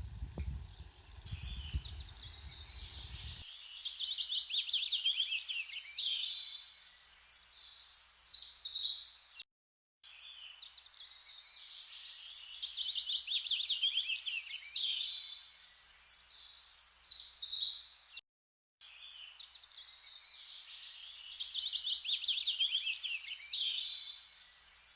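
Songbird singing rapid trills and chirps, the same recorded passage repeating three times with brief dead-silent gaps between. It follows a low rushing noise in the first few seconds.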